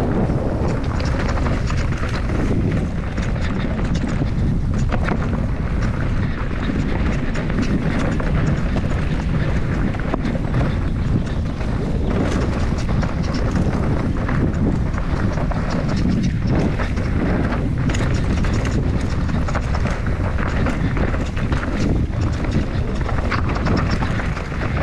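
Enduro mountain bike descending a trail at speed: wind rushing over the microphone, with tyres running over dirt and a constant clatter and knocking of the bike's chain and suspension over rough ground.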